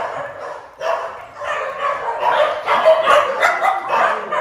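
Many kennelled shelter dogs barking together, one call on top of another. The barking dies down briefly near the start, then picks up again.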